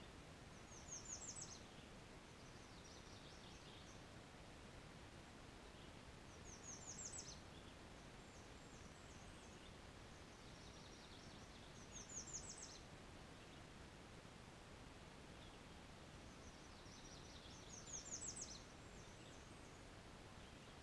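A songbird sings a short, high song four times, about every five to six seconds. Each song is a quick run of rapid high notes, faint over a steady background hiss.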